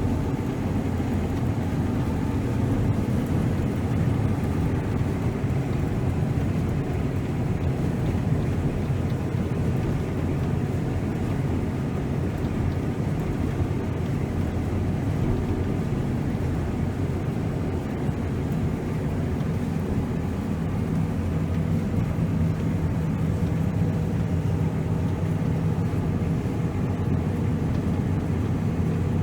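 Large diesel farm machinery, a combine or four-wheel-drive tractor, running steadily: a continuous low engine drone with a steady hum.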